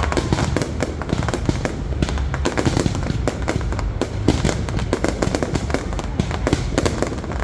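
Fireworks going off in a dense barrage: rapid overlapping bangs and crackling over a continuous low rumble of booms.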